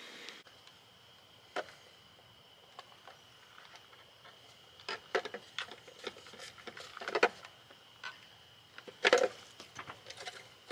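Scattered light clicks and knocks of hands and a screwdriver handling a small plastic box and wiring on top of a battery, the loudest a few sharp knocks about nine seconds in. A faint steady high whine sits behind them.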